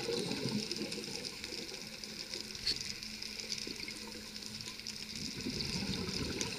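Scuba diver breathing through a regulator, heard underwater. Exhaled bubbles rumble out at the start and again about five seconds in. A faint steady low hum runs in between, while he breathes in.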